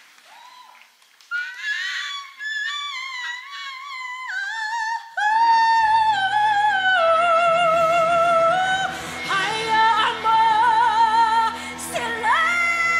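A dramatic coloratura soprano singing a ballad live in a high register. Soft, unaccompanied phrases come first. Instrumental accompaniment joins about five seconds in, and the voice moves into long held notes with wide vibrato, ending with a slide up to a sustained high note.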